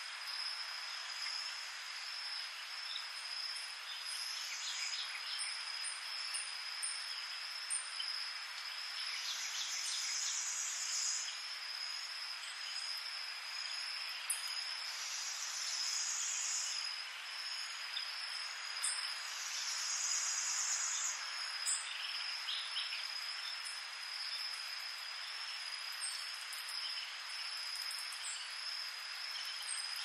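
Pre-dawn tropical insect chorus, with crickets trilling on one continuous high note over a dense hiss of calls. A higher, buzzier insect call about two seconds long comes in four times, and short chirps are scattered throughout.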